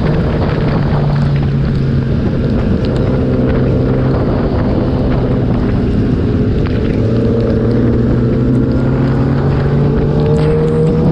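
Kawasaki ZX-10R's inline-four engine running at a steady pace, heard onboard through heavy wind noise on the microphone. The engine note steps up and down in pitch a few times and rises near the end.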